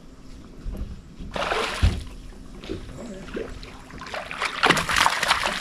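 A hooked bass thrashing and splashing at the water's surface in two bursts, the first about a second and a half in with a thump, the second near the end.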